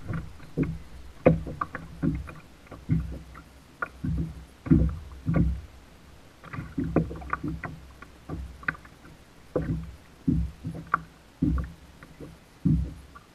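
Small waves slapping and knocking against a plastic kayak hull in choppy water, in irregular hits about one or two a second.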